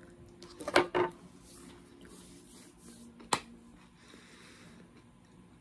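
Biting into and chewing a crispy chocolate mint protein bar: a few sharp crunches about a second in, then faint chewing with one more sharp click a little past three seconds.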